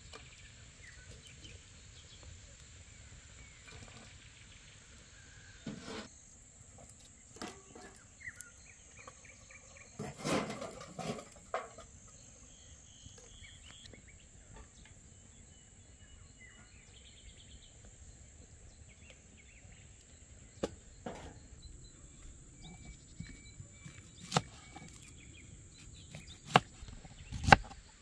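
Rural outdoor ambience: a steady high insect drone with a few short bird chirps, broken by scattered knocks. Near the end, sharp chops of a knife cutting onion on a wooden board begin.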